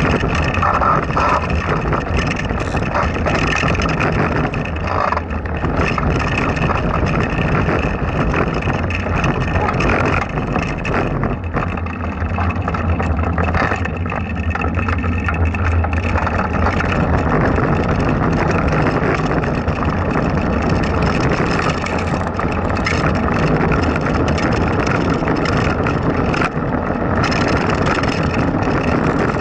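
Blokart land yacht rolling over rough asphalt: a steady rumble from its small wheels and frame, with wind buffeting the microphone.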